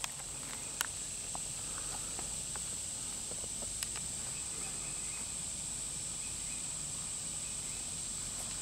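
Steady, high-pitched drone of insects, with a few faint clicks of footsteps on gravel.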